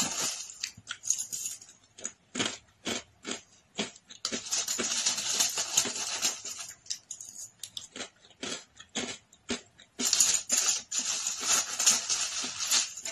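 Close-up chewing of crispy fried food: irregular crunches and mouth noises, thicker in stretches about four seconds in and again near the end.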